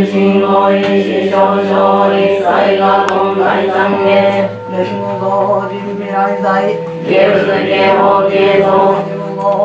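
A group of voices chanting a Buddhist sutra together in unison, recited on a near-steady pitch with a regular syllable rhythm.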